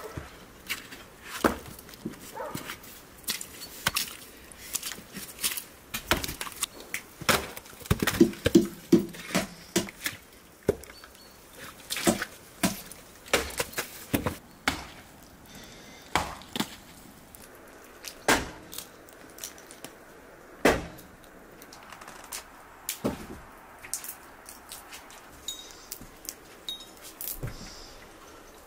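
Hatchet chopping and splitting firewood on a chopping block: a long string of sharp, irregular chops and cracks of wood splitting, about one or two a second.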